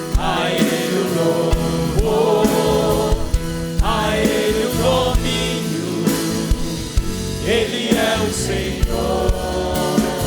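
Christian praise song: voices singing together over a band with a steady drum beat.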